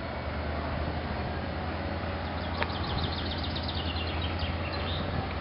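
Low steady rumble of a freight train's diesel locomotive idling, with a songbird singing a rapid run of high chirps from about two seconds in.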